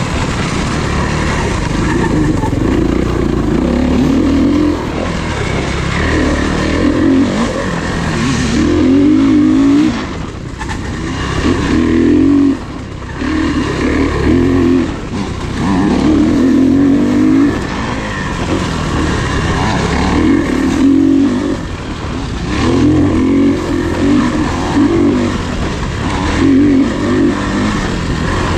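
Off-road racing engines revving hard and backing off again and again, the pitch climbing through the gears every second or two, with brief lulls when the throttle closes.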